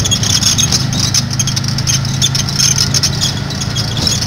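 Ride noise of a moving pedicab: a steady low hum with constant high rattling and clattering.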